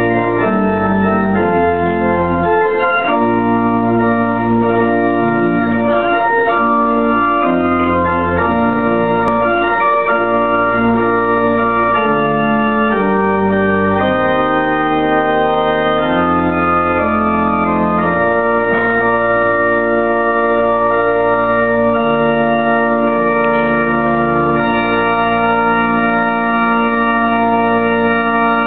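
Church organ playing a wedding processional: slow, sustained chords over long-held low bass notes, changing every second or two.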